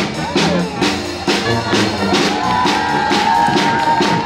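Live brass-and-drum street band playing an upbeat tune on trombone, clarinet, tuba and snare drum, with a steady beat about twice a second. About halfway through, a long high note is held.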